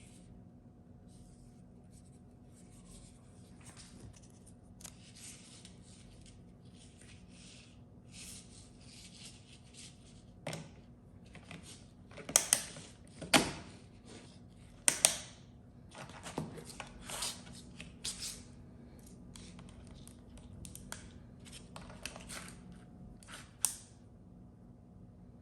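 Small hand-tool work on a phone charger: a run of short, high-pitched scraping and snipping strokes, with several sharp, louder clicks about halfway through.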